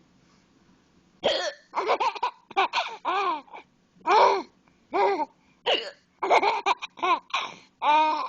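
A woman's hiccups mixed with a young child's laughter at them, in a quick run of about a dozen short bursts starting about a second in.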